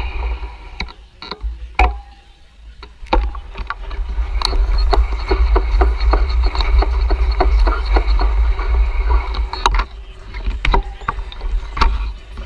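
Wind rumbling on a GoPro microphone as the bicycle rides along. A run of sharp ticks from the bike, about two or three a second, comes in from a few seconds in and stops near the end.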